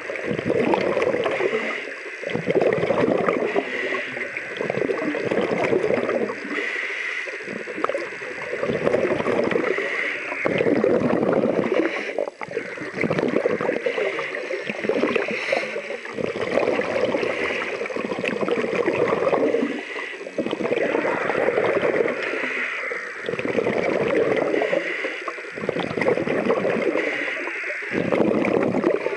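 Scuba breathing heard underwater: a diver's regulator and exhaled bubbles, in repeated rushing bursts every couple of seconds.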